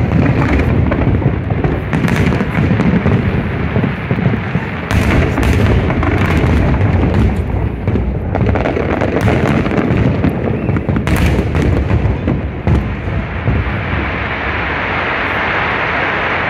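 Aerial fireworks display: a continuous rumble of booming shell bursts with many sharp cracks over it. In the last few seconds a steadier hiss takes over.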